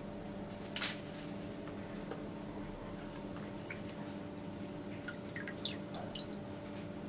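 Quiet kitchen handling sounds of coating rolled yufka börek. There is a brief rustle about a second in as a breadcrumb-coated roll is handled and laid on the parchment-lined tray. Later the next roll is dipped into a glass bowl of egg-and-oil sauce and lifted out, with small splashes and drips of sauce falling back into the bowl, over a faint steady hum.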